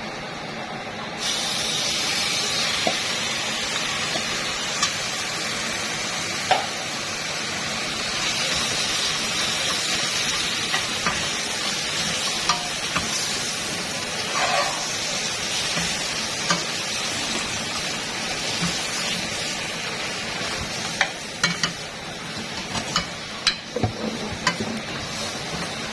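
Food frying and sizzling in a pan, the sizzle starting about a second in and running steadily, with scattered clinks and knocks of a utensil against the pan, more of them near the end.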